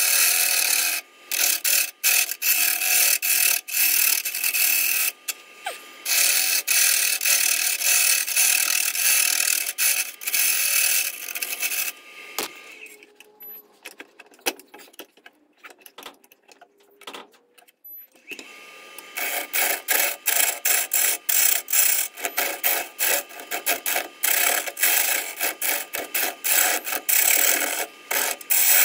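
Gouge cutting a spinning eucalyptus burl on a wood lathe: a hissing cut full of rapid clicks over the steady whine of the lathe, the clicks typical of an interrupted cut on an uneven live-edge blank. About twelve seconds in the lathe stops and there are only a few faint knocks; about six seconds later it runs again and the cutting resumes.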